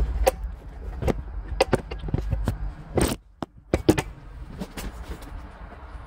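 Irregular sharp clicks and knocks of hard parts being handled at a bus's steering column and ignition wiring, over a low rumble.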